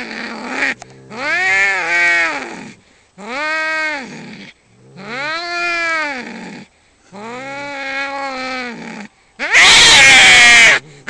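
Two domestic cats in a fight standoff yowling at each other: long caterwauls that rise and fall in pitch, about four in a row with short breaks, then a loud, harsh screech near the end as the standoff flares.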